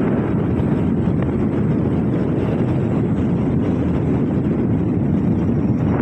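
Steady wind rush buffeting the microphone on a moving vehicle, mixed with road and engine noise.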